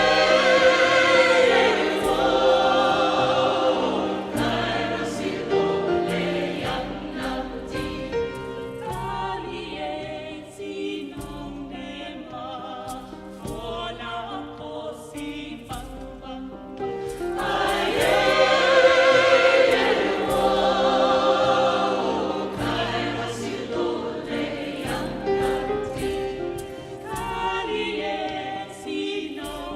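A choir singing together, the voices swelling loudest twice in long sung phrases, over a steady run of percussive strikes.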